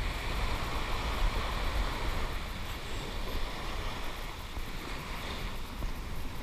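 Wind buffeting the microphone in a steady low rumble, over the rush of surf washing onto the beach.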